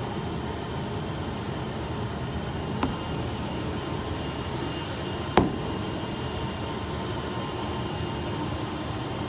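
Steady whooshing drone of an industrial blower, with a light knock a little under three seconds in and a sharper, louder knock about five seconds in as the cut acoustic panel pieces are handled.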